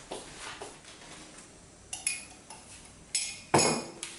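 Kitchenware clinking on a counter: a few sharp clinks with a brief ring, about two seconds in and again near the end, the loudest about three and a half seconds in.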